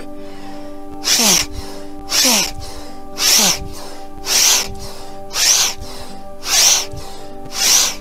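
A person breathing out forcefully seven times, about once a second, each breath a loud breathy 'haa' that falls in pitch, as the upper body is shaken in a forward bend with the hands interlocked. A steady drone of background music runs underneath.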